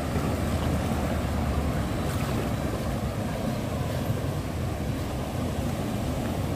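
Steady rush of turbulent water pouring out of a canal culvert, with wind buffeting the microphone, strongest in the first second or two.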